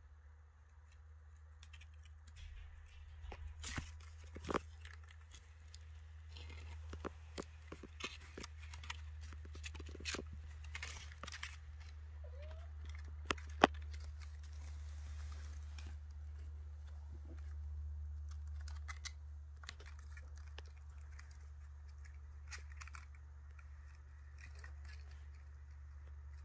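Kittens' claws scratching and scrabbling at a woven basket, with scattered light clicks and knocks as they climb in and tip it; the sharpest click comes about thirteen seconds in. A steady low hum lies underneath.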